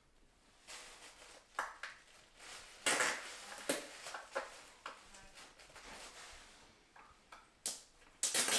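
Irregular light clicks and rustles of hands fitting small plastic washers onto toilet flange T-bolts (closet bolts), with the sharpest clicks about three seconds in and near the end.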